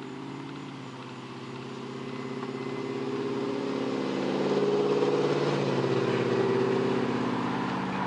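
A motor vehicle's engine running, growing louder over the first five seconds and then holding steady.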